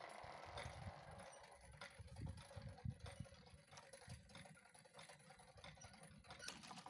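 PZM-2 level-crossing barrier arms lowering, heard faintly, with scattered light clicks over an irregular, gusty low rumble on the microphone.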